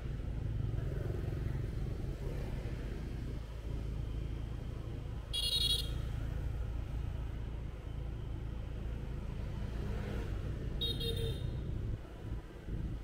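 Motorbike ride through city traffic: a steady low engine and road rumble, with two short, high-pitched horn beeps about five and eleven seconds in.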